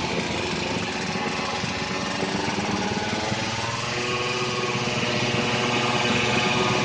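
Two-stroke Yamaha F1ZR motorcycle engine running hard and revving, with a high, buzzing note. The pitch climbs about halfway through.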